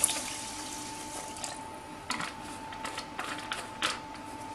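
Water pouring from a plastic bottle onto uncooked rice in a plastic pot, trickling off about a second and a half in. Then a few light clicks and knocks as the bottle is taken away.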